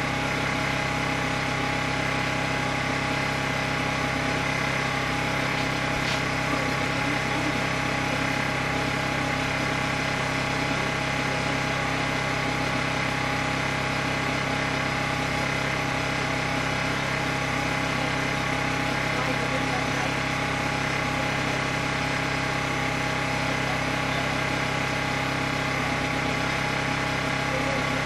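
A steady engine hum at an even idle, with no changes in pitch or level.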